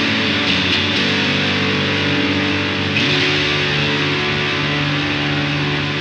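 Electric guitar played through a Southampton Pedals Indie Dream, a drive, reverb and delay pedal. Held chords ring on, changing about a second in and again near three seconds in with a short upward slide.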